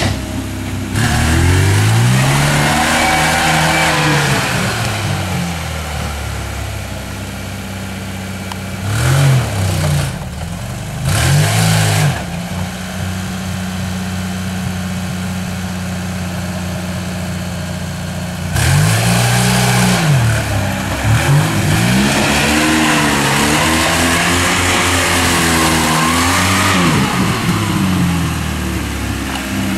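Lada Niva 4x4's engine revving up and down as it is driven over rough off-road ground. Long swells of revs come near the start and again through the second half, with two short blips and a spell of steady running between them.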